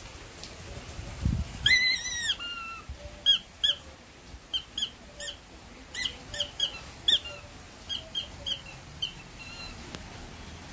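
Rubber squeaky ball toy squeaking as a dog bites and chews it: one long high squeal about two seconds in, then a run of short, quick squeaks at irregular intervals.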